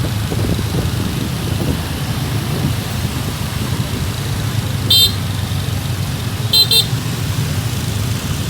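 Steady rumble of vehicle engines and traffic in a road convoy, with short high-pitched horn toots: one about five seconds in and two quick ones shortly after.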